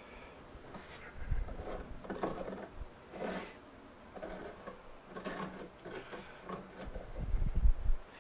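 Steel dividers scribing circles into the rough face of a green-wood bowl blank: irregular short scratching strokes, some with a faint squeak, plus two dull bumps from handling, the louder one near the end.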